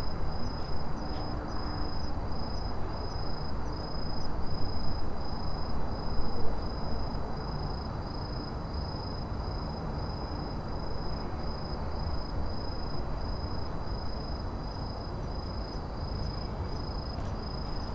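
A cricket chirping steadily at one high pitch, about two short chirps a second, over the constant low rumble of city traffic, which swells slightly a few seconds in.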